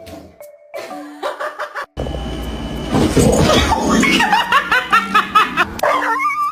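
A burst of laughter, a quick run of repeated chuckles, over light background music; the laughter comes in about two seconds in and stops shortly before the end.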